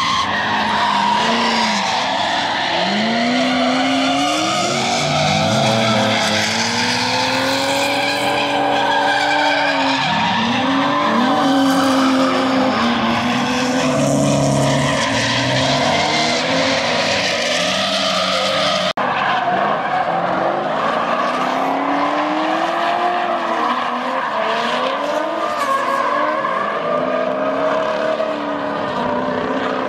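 Several drift cars sliding through a corner together, their engines revving up and down hard over a continuous squeal of spinning, sliding tyres.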